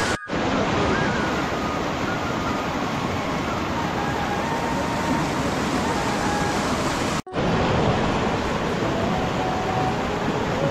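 Rushing mountain river: a steady roar of fast water running over rocks. The sound cuts out for a split second twice, just after the start and about seven seconds in.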